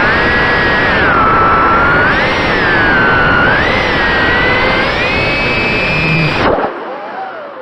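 Brushless motors (Racerstar 1407 3600KV) and four-blade 3-inch props of an FPV micro quadcopter whining in flight, the pitch rising and falling with the throttle. About six and a half seconds in, the throttle is chopped and the whine drops suddenly to a faint, low, wavering whir.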